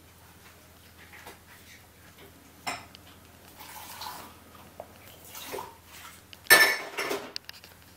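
A Maltese puppy playing in a pile of toys on its bed: soft rustling and knocking of the toys, a sharp knock about a third of the way in, and a louder clattery rustle near the end.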